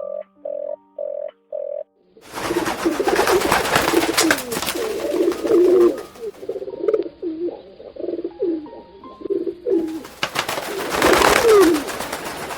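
Croaking in short, evenly spaced pulses, about three a second, which stops about two seconds in. Then many pigeons or doves cooing in low, wavering calls over a loud rustling, clattering hiss.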